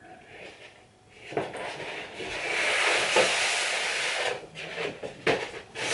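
A large sheet of photo wallpaper rustling and crackling as it is unrolled and lifted. The rustle starts suddenly about a second in, is loudest in the middle, and breaks into a few sharp crackles near the end.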